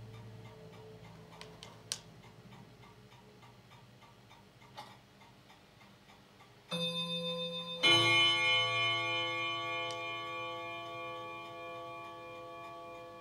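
Steady, quick ticking under a low hum, with two sharp clicks in the first five seconds. About seven seconds in, a bell-like ringing chord of several tones sets in, swells once, and slowly dies away.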